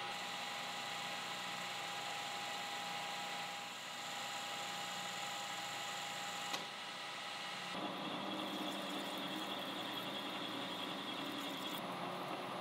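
Metal lathe running while a carbide insert tool cuts a steel bar: a steady machine hum with a few steady whining tones over a hiss of cutting noise. The sound shifts suddenly with a short click about six and a half seconds in, and changes again about a second later.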